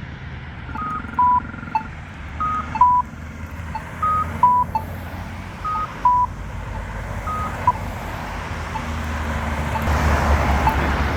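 Polara EN4 accessible pedestrian push button beeping repeatedly in two-note pairs, a higher tone then a lower one about every 1.6 s. Street traffic rises near the end.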